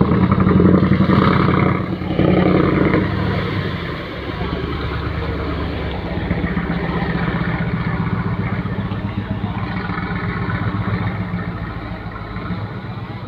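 Fishing boat's Fuso diesel engine running under way, heard through its exhaust. It is louder for the first few seconds, then settles to a steady, even running note.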